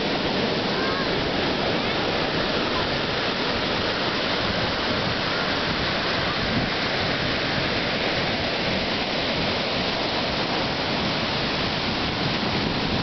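Ocean surf breaking and washing over a sandy beach: a steady, unbroken rush of waves and foaming water.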